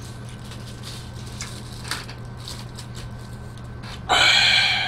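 A man's loud, brief wordless cry about four seconds in, over a low steady hum with a few faint clicks.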